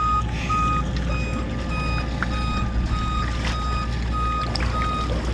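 Yujet electric surfboard's safety beeper sounding a steady string of short, high beeps, about two a second, signalling that the board is switched on. A steady low rumble runs underneath.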